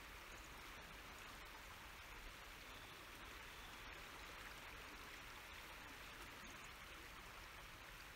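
Faint, steady rush of flowing river water.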